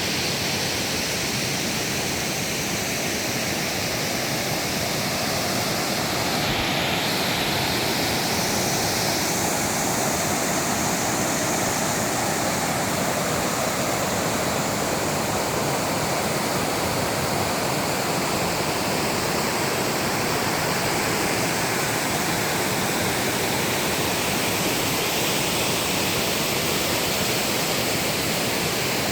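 Mountain valley stream running full after rain: a steady rushing of water.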